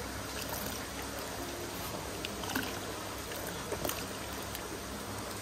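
Steady running water, like a trickle or stream, with a few faint small splashes or knocks.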